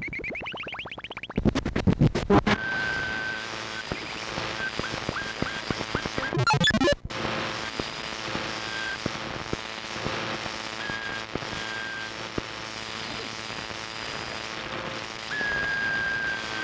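Collage of cut-up radio bursts spliced together: snatches of music and broadcast sound, short steady whistle tones and a rising whistle, with a loud rapid run of crackling clicks early on. Around seven seconds in a sweeping sound cuts off abruptly at a splice.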